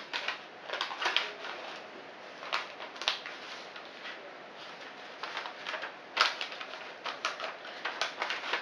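Rustling and crackling of a thin reusable toaster bag as a sandwich is slid into it by hand: a run of short, irregular rustles and clicks, the loudest about six seconds in.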